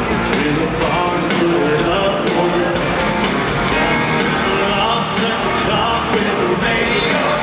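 Live country band playing a country song with a male lead singer, guitars and a steady drum beat, heard through an amateur camera's microphone from within a stadium crowd.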